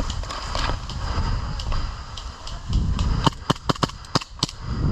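Airsoft guns firing: a quick, uneven run of about seven sharp cracks starting a little past three seconds in, over rustling from the player's movement.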